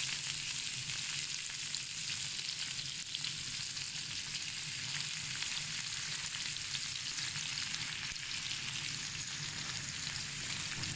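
Sliced onions sizzling in hot oil in a frying pan, a steady sizzle that starts the moment they are dropped in.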